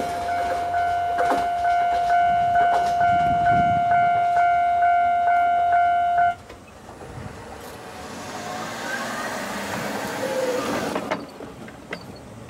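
Japanese railway level-crossing bell ringing in a steady electronic ding about twice a second, over the fading rumble of a passing train's wheels on the rails. The bell cuts off suddenly about six seconds in, once the train has cleared the crossing, leaving the faint sound of the train receding.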